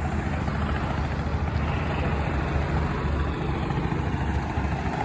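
An engine running steadily, a low drone with a noisy hiss over it and no change in pitch.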